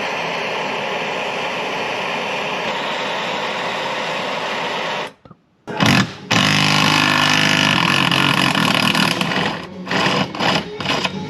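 Handheld gas torch flame hissing steadily as it heats a rust-seized seat-mounting nut to free the bolt. About five seconds in the sound breaks off briefly, then comes back louder with a low hum under the hiss, and near the end it breaks into several short bursts.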